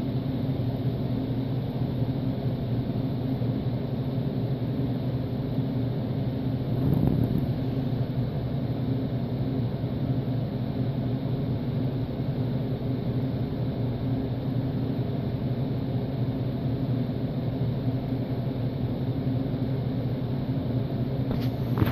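Steady low rumbling hum of a running motor, holding one pitch throughout.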